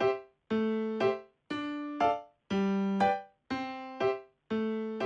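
Background music: electric piano or keyboard playing a simple melody, with clear notes struck about twice a second, each ringing out and fading.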